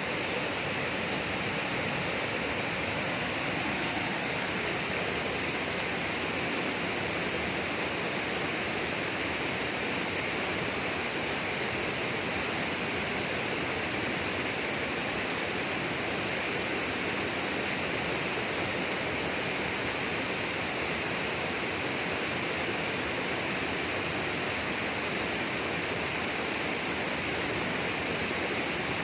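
Steady, unbroken rush of flowing water in a tropical rainforest, with a constant high hiss above it and no changes throughout.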